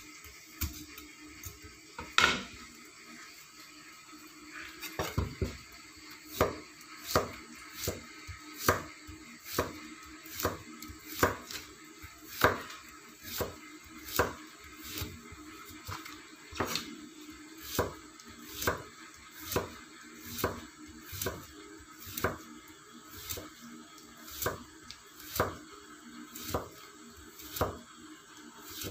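Kitchen knife chopping yellow pumpkin into pieces on a chopping board, each cut knocking against the board in a steady rhythm of roughly one and a half strokes a second.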